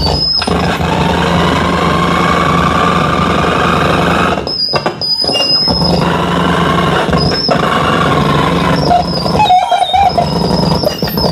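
Loud amplified harsh noise from a live noise-music performance: a dense wash of distorted noise with a high, steady squeal on top, cutting out sharply a few times.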